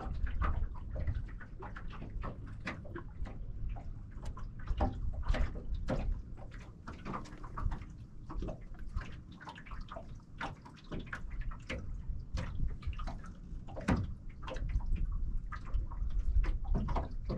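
Small waves lapping and slapping against a boat hull in irregular taps and splashes, over a low rumble of wind on the microphone.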